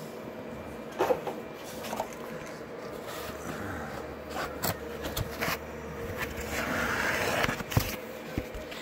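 Foam packing insert being pulled out of a 3D printer's frame: rustling and scraping of the foam with scattered knocks and clicks, and a longer scrape about six and a half to seven and a half seconds in.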